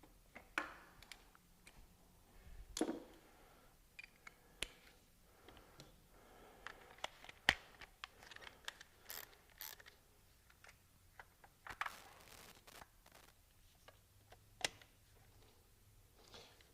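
Scattered clicks, taps and light knocks of hands and tools working on the ignition coils and spark plugs, the sharpest click about seven and a half seconds in.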